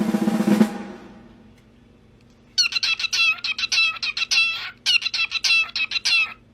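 A bird giving rapid, high-pitched chirping calls in two runs of about two seconds each. Before the calls, a loud fast rattle stops about two-thirds of a second in.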